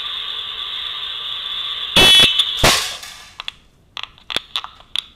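A steady, high electronic buzzer tone cuts off about two seconds in as a slingshot shot smacks into a metal can target with a ring. A second loud impact follows just after, then a handful of light clicks and taps.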